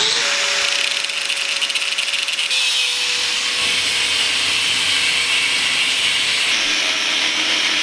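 Angle grinder cutting through a metal plaque held in a vise, a loud, steady grinding hiss over the motor's whine. The whine drops slightly in pitch about two and a half seconds in as the disc bites.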